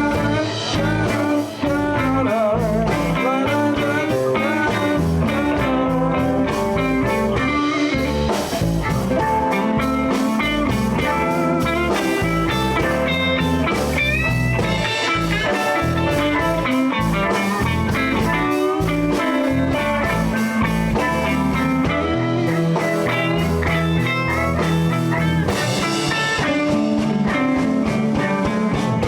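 Live blues band playing an instrumental passage, with guitar to the fore over bass and drums.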